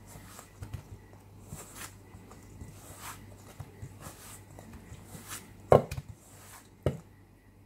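A utensil stirring and scraping stiff, crumbly noodle dough in a stainless steel bowl, making soft irregular scrapes and taps. Two louder knocks against the bowl come about two thirds of the way through.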